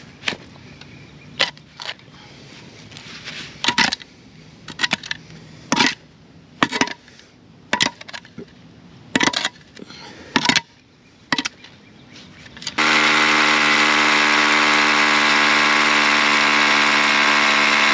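A steel shovel blade jabbing and scraping into dirt and broken concrete, about a dozen sharp strikes at uneven intervals. About 13 seconds in, a Milwaukee M12 Fuel cordless hammer drill starts and runs steadily at full speed, drilling into the concrete base.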